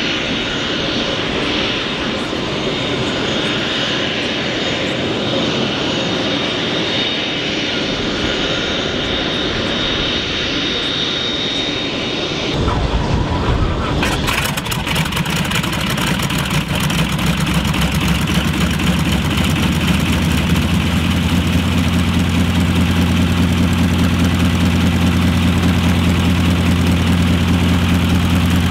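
Boeing-Stearman Model 75 biplane's radial engine starting a little under halfway through, then settling into a steady low idle with the propeller turning. Before it catches there is a steady high whine and rushing noise.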